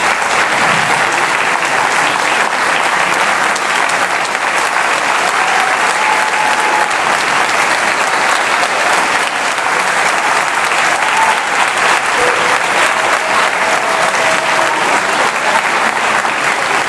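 Applause from a crowd: many hands clapping in a dense, steady patter.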